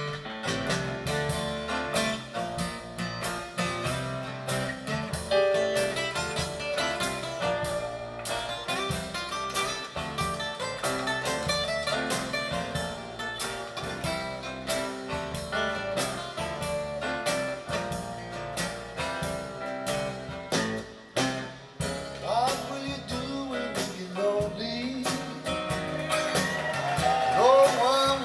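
Acoustic blues-rock recording played back through hi-fi floor-standing loudspeakers with their woofers switched off and heard in the room: acoustic guitars over a steady rhythm section, with a voice joining in during the last few seconds.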